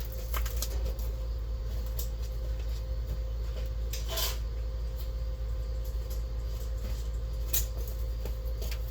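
Welding machine switched on and humming steadily, with scattered light clicks and knocks of equipment being handled and a short hiss about four seconds in, before any welding starts.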